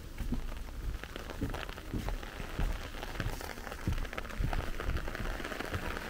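Steady rain falling, with many separate drops ticking sharply close by, and the low thuds of footsteps on a wet path at a walking pace. The rain hiss grows a little heavier about halfway through.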